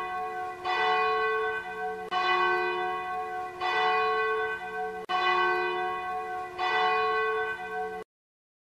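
A church bell tolling, one stroke about every one and a half seconds, each ringing on until the next. It cuts off suddenly about eight seconds in.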